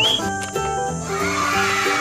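Upbeat children's background music with steady, plucky notes, joined about a second in by a hissy, wavering sound effect that runs through to the end.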